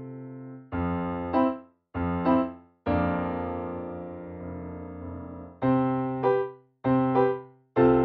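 Background piano music: chords struck and left to ring, in short phrases with brief silences between them.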